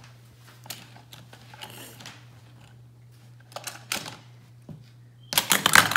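Scattered light clicks and taps of a plastic Hot Wheels track set being handled, over a faint steady hum. About five seconds in comes a quick, louder burst of clattering as the die-cast car is launched and rattles through the plastic track.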